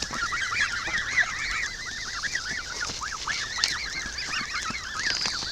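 A crowd of waterfowl calling over one another without pause, many short rising-and-falling calls overlapping as the flock begs for food.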